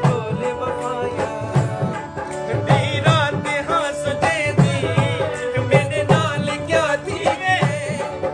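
Saraiki folk song (dhoray) sung live by a male voice, with a wavering, ornamented melody over a steady held note and a regular hand-drum beat.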